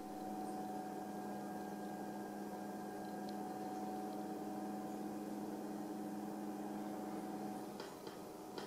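LC Power AiRazor LC-CF-120 Tube 120 mm case fans running: a steady airy whir with a low, even hum. Near the end the sound gets slightly quieter and the low hum drops away, as a fan turns at about 1200 rpm heard from 15 cm, with a couple of faint clicks.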